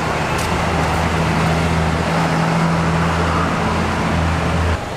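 A motor vehicle's engine running with a steady low hum over street noise, cutting off sharply near the end.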